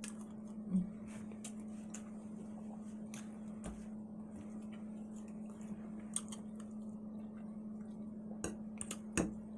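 Soft, wet chewing and mouth sounds of a person eating steak, with faint scattered clicks and one short louder sound under a second in, over a steady low hum.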